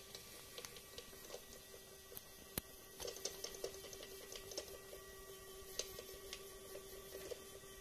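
Homemade LEGO monorail engine running along the track: a small electric motor's steady hum with irregular light clicking and rattling from the wheels and drive on the toothed monorail track, busier from about three seconds in. The rattle is the vibration the engine still has on turns.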